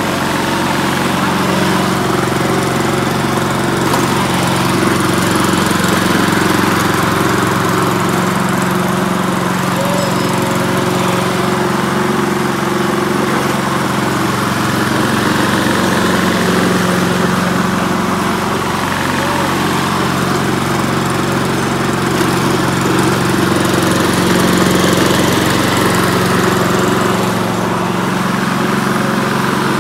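Ryobi RLM46160S self-propelled lawn mower's 160 cc petrol engine running steadily, with slight rises and falls in level.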